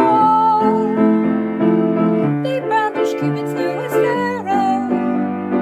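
Piano-led instrumental music: chords with a held, slightly wavering melody line above them.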